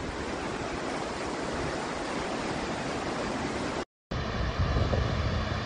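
A steady rushing noise that cuts out for a moment about four seconds in. After the cut comes a deeper, rumbling rush of brown floodwater surging down a street.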